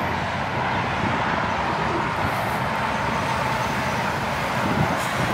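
Steady road traffic noise: an even, continuous rumble and hiss with no single vehicle or event standing out.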